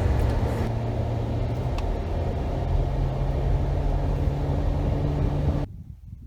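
A vehicle engine running with a steady low rumble and a low hum that shifts pitch a few times, cut off abruptly about a second before the end.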